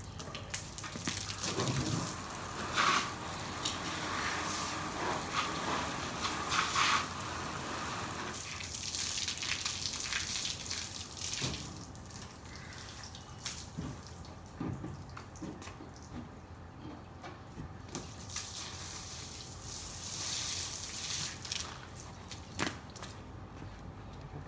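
Garden hose spraying water against a car's body panels, rinsing the car, with splashing and dripping. The spray is strongest for the first several seconds, then weaker and patchy.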